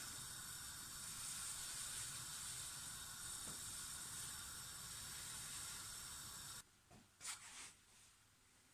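Faint, steady hiss of a pan of water kept at the boil on a gas hob while an egg poaches. It cuts off suddenly about two-thirds of the way through, leaving near silence.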